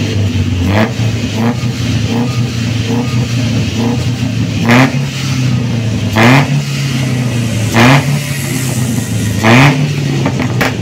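Suzuki APV Arena's four-cylinder petrol engine heard at the tailpipe, idling between short throttle blips: a few small revs early, then four sharp, loud ones in the second half. The engine has just had its injectors and throttle body cleaned.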